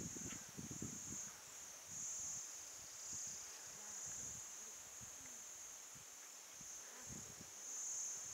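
Insects, cricket-like, trilling steadily in a high, thin band that swells and fades about once a second, with scattered faint low knocks.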